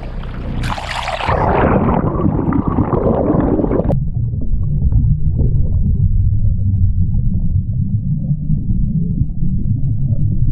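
Water splashing and washing right at the microphone as an action camera is dipped at the surface beside the boat hull; about four seconds in it goes under, and the sound turns into a muffled underwater rumble and gurgle with all the high sounds gone.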